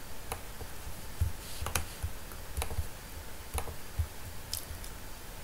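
Computer mouse clicking, several single clicks at irregular intervals, with a faint low hum underneath.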